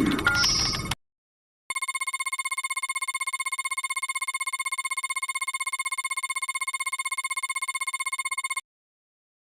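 Synthesized supercomputer sound effects from a cartoon: a falling electronic sweep ends in the first second, then after a short gap a fast electronic trill, like a phone ringing, sounds steadily for about seven seconds and cuts off abruptly.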